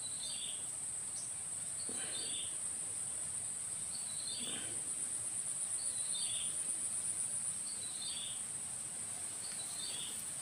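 Steady high-pitched trilling of insects, cricket-like, with a short falling call repeating about every two seconds.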